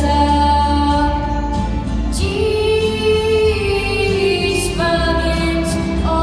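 Two girls singing a slow song together into handheld microphones, holding long notes and moving between them in steps.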